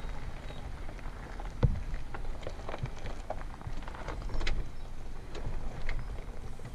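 Ford Bronco crawling slowly over a rocky dirt trail: its tyres crunching and popping gravel and small stones in scattered crackles, with one sharper knock of a rock nearly two seconds in. Under it runs a low rumble of wind on the microphone and the truck running.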